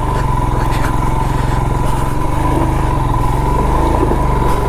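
Royal Enfield Himalayan's single-cylinder engine running at low, steady speed as the motorcycle picks its way down a rocky off-road track, with a steady whine above the engine note.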